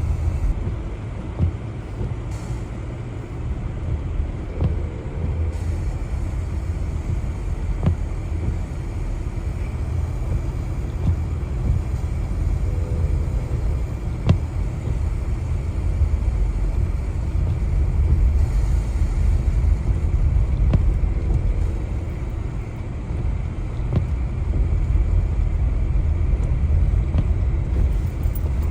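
A vehicle driving on a snow-covered mountain road: a steady low rumble of road and engine noise, with a few faint clicks.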